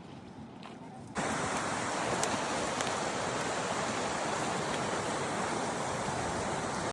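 Rushing water, a loud steady hiss that cuts in abruptly about a second in, over a quieter background with a few faint clicks.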